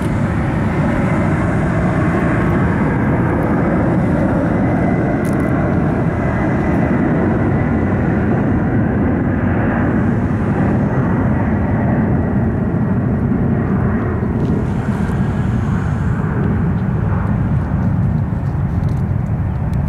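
Boeing 747's four jet engines at takeoff thrust during the takeoff roll: a loud, steady rumbling roar with a faint high whine over it in the first half, easing slightly near the end.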